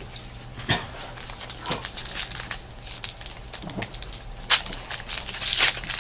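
Trading-card pack wrappers crinkling and tearing as packs are opened by hand, in a run of short crackles that get louder near the end.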